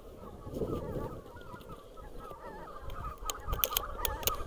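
A flock of wild geese calling in flight, many short overlapping honks repeated throughout, with a few sharp clicks about three to four seconds in.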